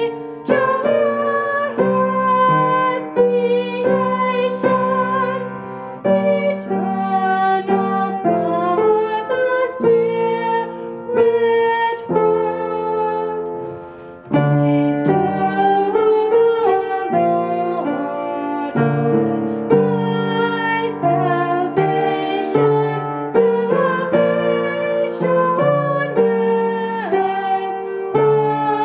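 Upright piano accompanying a solo voice singing a hymn, the piano playing full chords under the melody.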